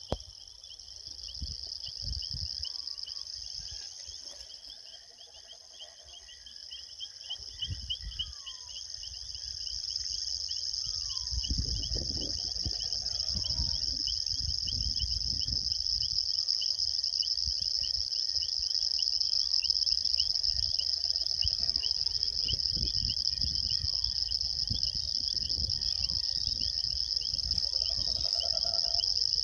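Evening chorus of crickets chirring in a steady high, fast-pulsing trill, with a short falling call repeating about every second and a half. A low rumbling noise comes in about a quarter of the way through.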